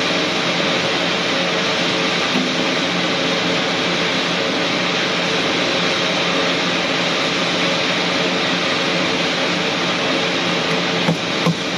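Steady drone of a running machine with a faint hum. About a second before the end, a hammer starts striking a steel rod in quick, even blows.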